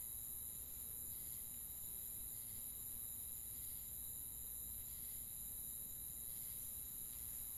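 Faint, steady high-pitched drone of crickets over a low rumble.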